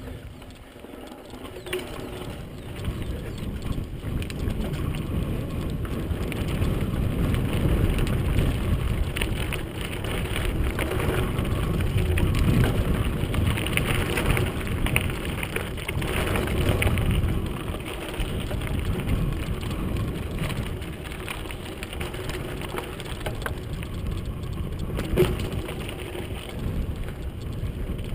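Mountain bike riding over a dirt and gravel singletrack: a steady low rumble of tyres on loose ground with constant small clicks and rattles from the bike over stones, quieter for the first couple of seconds, then louder, with one sharp knock near the end.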